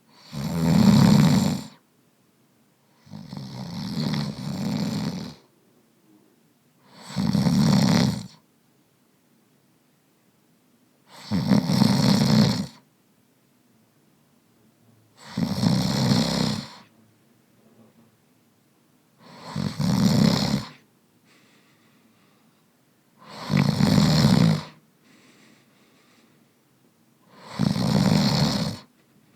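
A man snoring steadily, eight loud snores about four seconds apart, each lasting about a second and a half, with faint breathing in the gaps.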